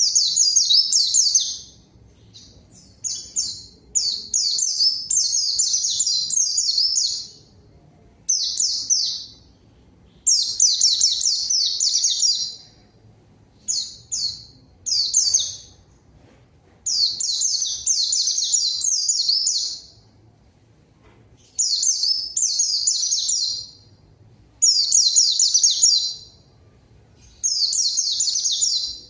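White-eye (pleci) singing energetically in repeated fast, high trilling phrases of one to three seconds each, with short pauses between them, about ten phrases in all.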